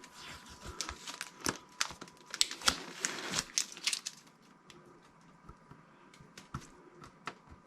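Adhesive tape being peeled and torn off a mini fridge's door, with crinkling and tearing sounds that are busiest in the first four seconds, then thin out to scattered clicks and rustles.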